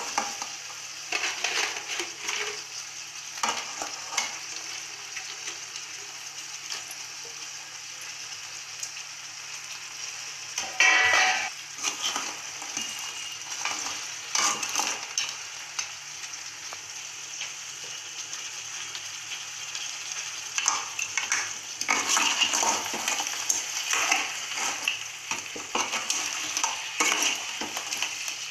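Blue crab pieces sizzling in a hot metal pan while a metal spoon stirs them, scraping against the pan in spells. The loudest scrape, about eleven seconds in, rings briefly.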